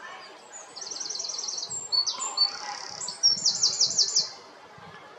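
A songbird singing a loud, high song: a run of rapid repeated notes, a few quick varied notes, then a second fast trill that stops about four seconds in.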